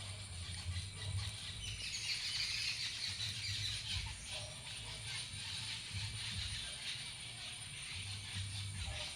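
Many small birds chirping and chattering at once, their calls overlapping in a dense chorus that is busiest a couple of seconds in, over an intermittent low rumble.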